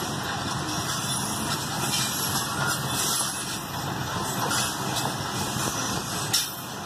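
Loaded metre-gauge grain hopper cars of a freight train rolling past, a steady rumble and rattle of wheels on rails with a few brief clanks, the sharpest about six seconds in.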